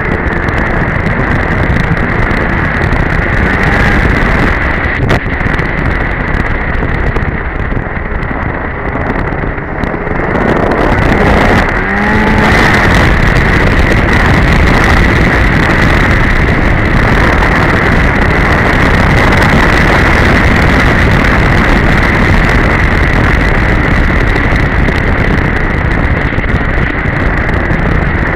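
Polaris Edge two-stroke snowmobile running at trail speed, with a steady high whine over the engine noise. It gets louder about twelve seconds in and stays there.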